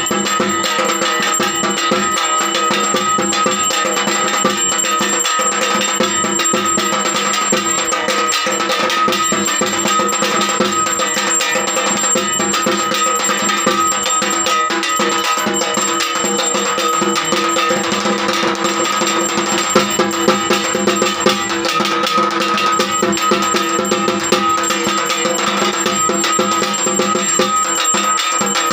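Fast, continuous drumming with steady ringing tones over it: festival drum music accompanying a Durga Puja worship, with a few louder strokes about two-thirds of the way through.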